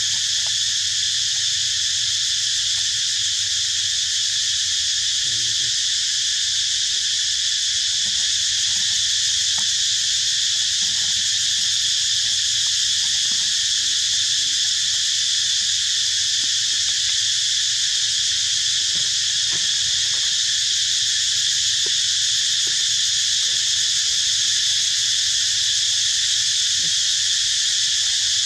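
A steady, high-pitched insect chorus that does not change, with faint scattered small ticks beneath it.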